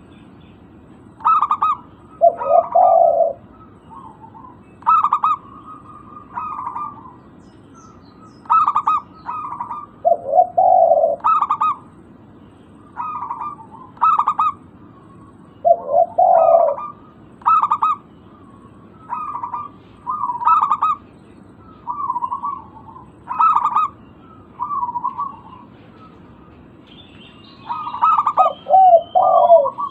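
Zebra dove (local perkutut) cooing: short phrases of staccato coos, one every two seconds or so, some ending in a lower rolling note. Fainter high twittering from another bird joins near the end.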